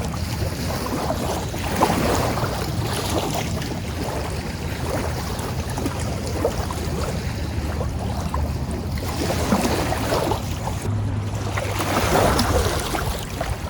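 Strong wind buffeting the microphone: a steady rumbling rush that swells about two seconds in and again near the end.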